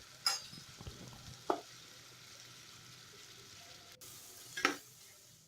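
Sliced onions frying gently in coconut oil in a pan, with a spoon stirring and three short scrapes or taps against the pan.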